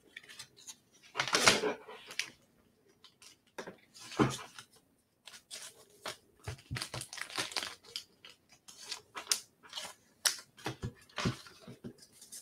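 Trading cards and their plastic sleeves being handled: an uneven run of short rustles, scrapes and clicks, the loudest a longer rustle about a second and a half in.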